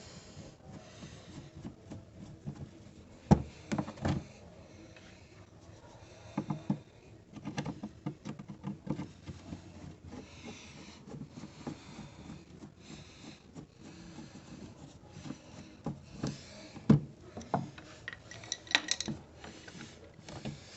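Scattered knocks, clicks and rubbing, as of something being handled or worked on by hand, with a few sharper knocks standing out.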